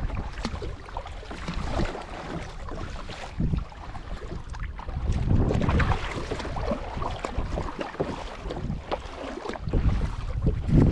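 Wind gusting unevenly on the microphone over a hiss of water, aboard a small boat on the river.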